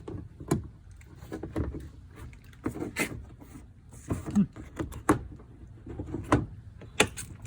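Scattered plastic clicks and knocks, about a dozen, as a power window switch's wiring plug is twisted and worked loose from its connector in a van's door panel.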